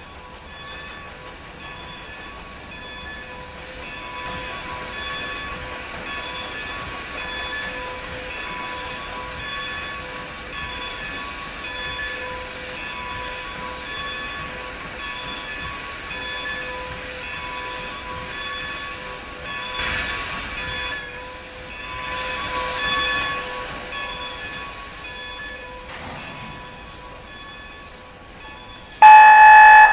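Passenger train rolling behind Strasburg Rail Road #90, a 2-10-0 steam locomotive, with a regular clicking of wheels over rail joints and a steady whine from the running gear. Near the end comes a sudden, loud, short blast of the locomotive's steam whistle.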